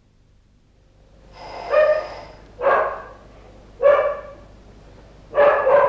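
A dog barking four times, about a second apart, after a quiet first second.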